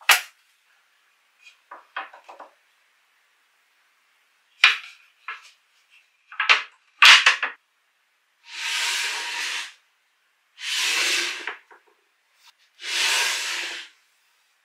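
Wooden pieces knocking and clicking together as a rubberwood tabletop with wooden dowels is handled against a teak frame, then three slides of wood rubbing over wood, each about a second and a half long.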